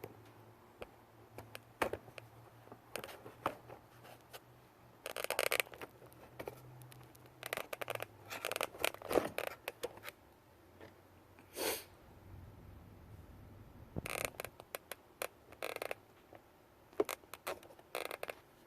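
Irregular clicks, scrapes and rustling of tools and parts being handled during a cylinder-head job, in bursts, over a faint low hum.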